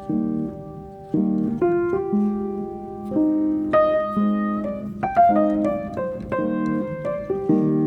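Background solo piano music: chords struck every second or so, with a run of quicker notes in the middle.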